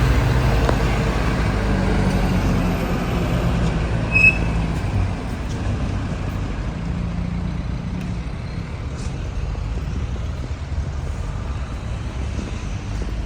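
A large vehicle's engine running with a low, steady rumble, easing off after about five seconds. There is one short high beep about four seconds in.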